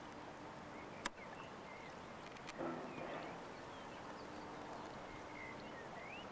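Faint outdoor ambience with a steady hiss and small birds chirping now and then, a sharp click about a second in, and a short coarse animal call about two and a half seconds in.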